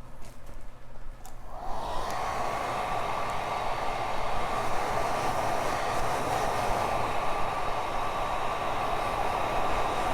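Handheld hair dryer switched on about a second and a half in, its motor whine rising quickly and then settling into a steady blowing hum.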